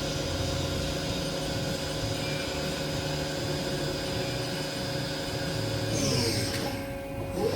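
Haas VM-2 CNC machining center spindle running steadily at 9,000 RPM, a steady whine with several tones. Near the end the pitch sweeps and then starts climbing as the spindle ramps up toward 12,000 RPM.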